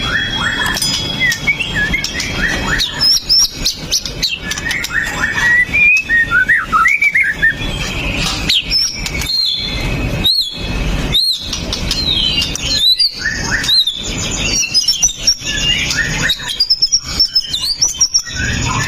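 White-rumped shama (murai batu) singing loudly, a fast, varied song of chirps and whistled glides, with a run of sharp, arched repeated notes around the middle.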